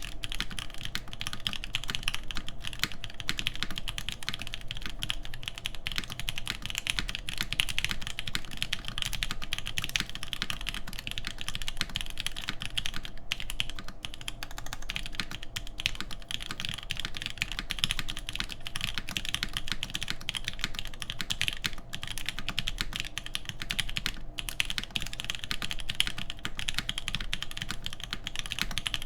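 Continuous typing on a custom mechanical keyboard, a Perry IU TKL with a full aluminium plate, 43studio Popu switches lubed with 205g0, and GMK keycaps: a fast, steady stream of keystrokes with a few brief pauses.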